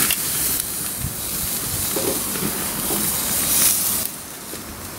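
Freshly flipped flank steak sizzling hard on the hot grates of a gas grill while fat flares up in flames. The hiss drops off noticeably about four seconds in as the flare-up dies down.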